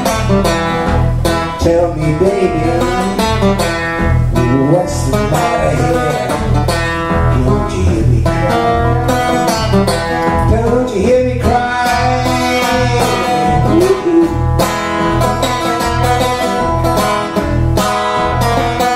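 Two acoustic guitars strumming a steady, driving blues groove, with a neck-rack harmonica playing bending melodic lines over it.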